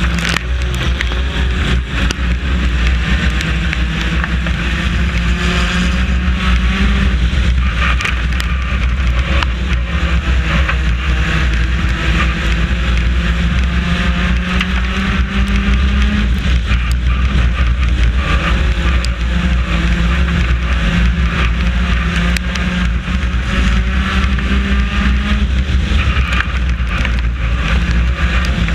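A four-cylinder race car's engine heard from inside the car, running hard. Its pitch climbs for several seconds and then drops, over and over, about every eight to ten seconds, with a heavy low rumble throughout.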